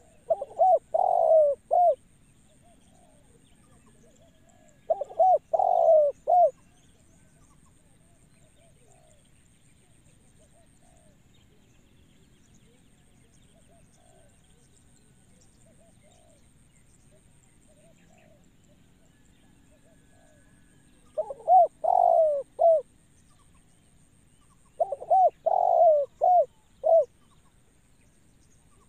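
Spotted dove cooing in four phrases of several short coos each: two phrases close together near the start and two more about twenty seconds in.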